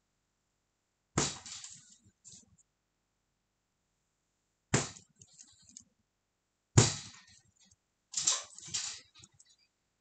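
Sharp clicks and knocks from a plastic lip liner pencil being handled close to the microphone, a handful of separate sudden sounds about a second in, near the middle and toward the end, each dying away quickly.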